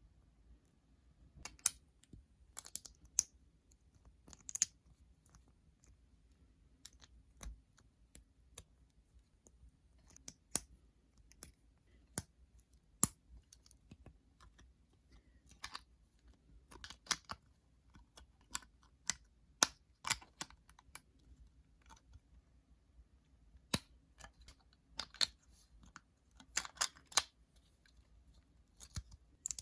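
Lego plastic pieces being handled and pressed together: irregular sharp clicks, some single and some in short clattering clusters.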